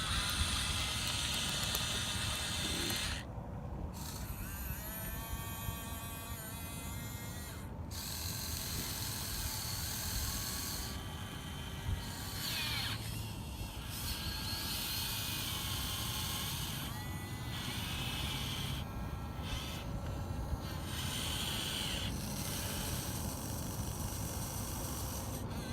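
Huina 1580 RC excavator's small electric motors and gearboxes whining as it works, starting and stopping with the pitch sliding up and down as the arm and bucket move.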